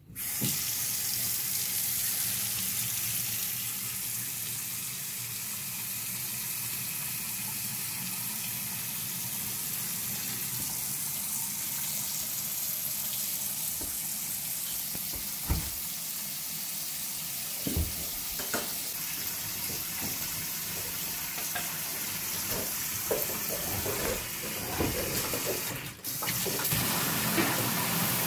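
Water running steadily from a Moen kitchen faucet into the sink. The flow comes on suddenly, and a few knocks and clatters sound over it in the second half, with a brief break near the end.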